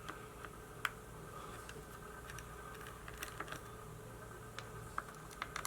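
Scattered light clicks and taps of small parts being handled, a few seconds apart, over a faint steady hum.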